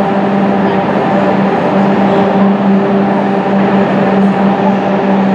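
A train running stationary with a steady hum: a constant low tone and its overtones over a wash of machinery noise.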